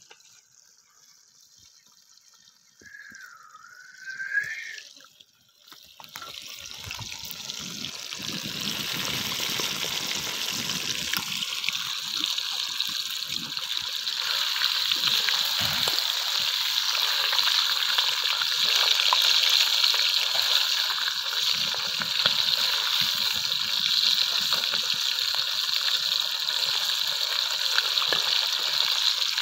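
Fish pieces frying in hot oil in a cauldron over a wood fire: a steady sizzle that starts about six seconds in and grows louder.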